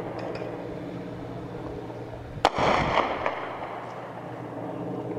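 Helicopter's steady drone overhead, with one sharp bang about two and a half seconds in that echoes and rumbles away over about a second.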